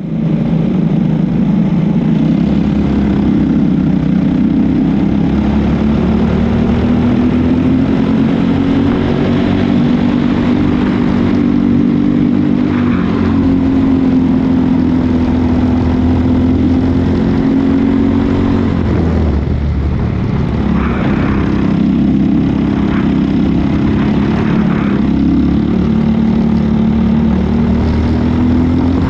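Onboard sound of a Briggs & Stratton single-cylinder four-stroke racing kart engine running hard at speed. Its pitch holds mostly steady, drops sharply about two-thirds of the way through, then climbs back up.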